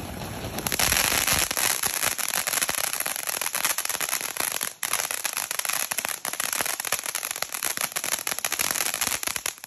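Ground fountain firework crackling: a dense, rapid stream of small pops over hissing sparks, which sets in about half a second in. There is a brief break near the middle.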